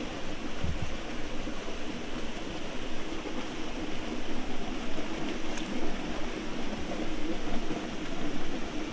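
Small waterfall splashing down between rocks into a pool: a steady, even rush of falling water.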